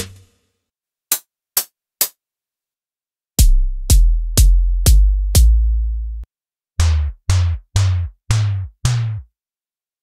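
Electronic drum presets from the UVI Titanium soundbank for Falcon, auditioned one after another. First come three short, sharp hi-hat ticks. Then five deep kick-drum hits about half a second apart, the last ringing on for nearly a second before cutting off. Then five retro tom hits with a falling sweep.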